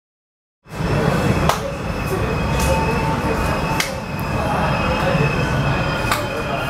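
Brightline passenger train, led by a Siemens Charger diesel-electric locomotive, passing close by at speed: a steady loud rumble of engine and wheels on the rails with a thin high-pitched ring over it and a few sharp clicks. The sound starts abruptly a little under a second in.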